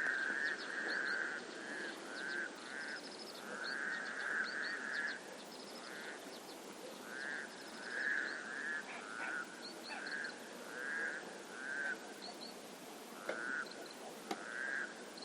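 Frogs croaking in a chorus, a string of short rattling calls repeating every half second or so and thinning out after about six seconds. Small birds chirp high above them.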